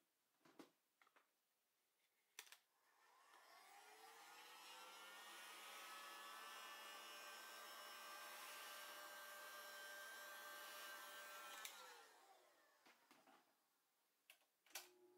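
Handheld electric heat gun switched on, its fan motor spinning up with a rising whine over a rush of air, running steadily for about eight seconds, then switched off with a click and winding down. A few light handling clicks before and after.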